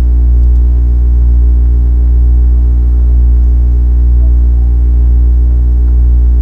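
Loud, steady electrical mains hum: a low buzz with a stack of overtones that does not change.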